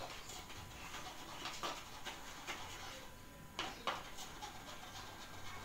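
Faint scratching as a plastic stick works oil through a filter in a funnel over a plastic bottle, with a few light clicks, two close together past the middle.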